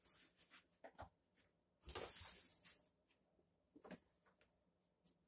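Near silence: quiet room tone with a few faint rustles and light knocks, the longest a brief rustle about two seconds in.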